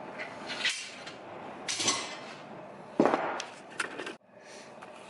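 Steel parts being handled, clanking and knocking: a few separate knocks and clatters, the sharpest about three seconds in.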